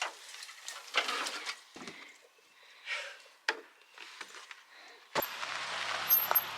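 Bags, bedding and camping gear being handled and carried: irregular rustling with a few knocks. About five seconds in, it gives way suddenly to a steady noise with a low hum.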